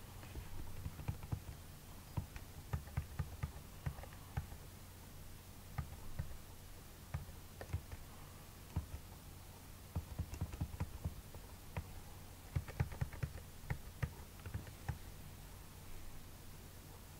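Computer keyboard keys tapped, single presses and short quick runs of clicks, over a low steady hum.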